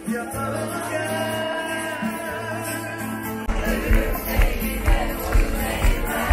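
Live pop concert music over a large PA: a singer over sustained chords, then a heavy dance beat comes in about three and a half seconds in, thumping about twice a second.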